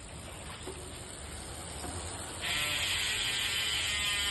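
Chris King rear bicycle hub freewheeling: its ring-drive pawl mechanism sets up a loud, steady, high buzz that comes in suddenly about halfway through, after a quieter stretch of rolling noise.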